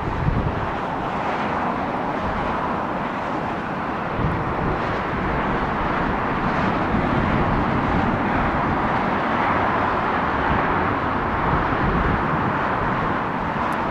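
Airbus A330 Voyager jet airliner on final approach, its two Rolls-Royce Trent 700 turbofans giving a steady jet noise, with wind buffeting the microphone.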